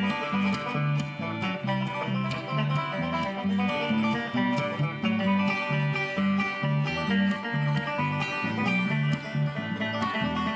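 Live bluegrass band playing an up-tempo tune: picked acoustic guitar and banjo over a steady beat, with low bass notes alternating back and forth.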